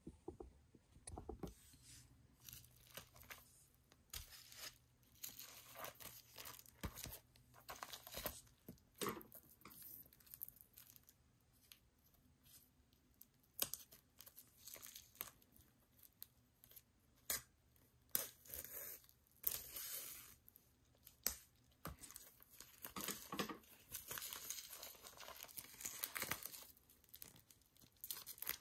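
Plastic shrink wrap on a boxed album being cut with scissors and peeled off: irregular crinkling and tearing with scattered sharp snaps, denser near the end.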